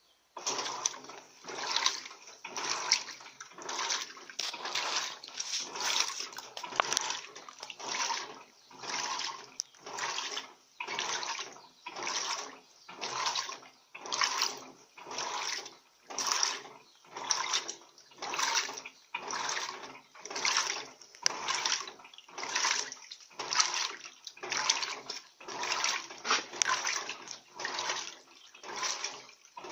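Electrolux Turbo Economia LTD15 top-loading washing machine agitating a load of bath towels in water. It starts suddenly about half a second in and sloshes in an even rhythm, about three strokes every two seconds.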